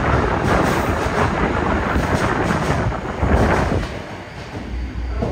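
Yokohama Municipal Subway 3000R-type train with Mitsubishi IGBT-VVVF drive departing the underground platform: a loud, steady rumble of wheels and running gear as the cars pass. The noise surges as the last car goes by, about three and a half seconds in, then falls away to a lower rumble as the train enters the tunnel.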